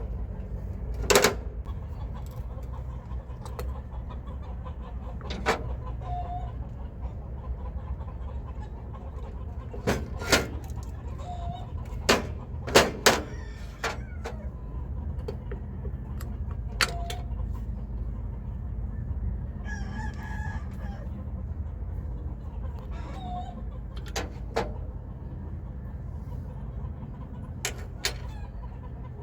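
Sharp metallic clicks and knocks of hand tools and loose parts as a Bendix air brake dryer is taken apart, scattered irregularly over a steady low hum. The loudest knocks come about a second in and again around twelve to thirteen seconds in.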